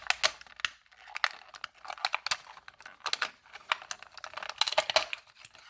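Cut-open plastic blister pack of a die-cast toy car crackling and clicking irregularly as it is handled and the car is worked free.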